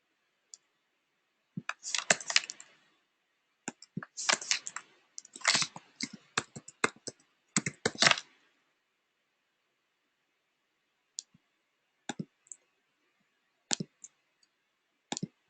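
Computer keyboard being typed on in quick bursts for several seconds, followed by a few scattered single key or mouse clicks.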